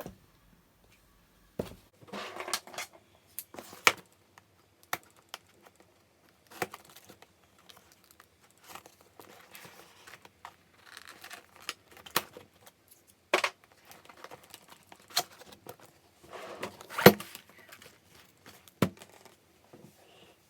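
A cardboard box and its packaging being opened by hand: bursts of rustling and tearing between scattered clicks and knocks, with one louder knock toward the end.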